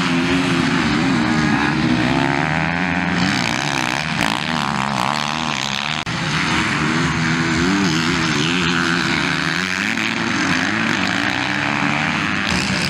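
Several motocross dirt bike engines revving as the bikes ride and corner on a dirt track, the pitch repeatedly rising and falling with the throttle and gear changes. The sound breaks off for an instant about six seconds in.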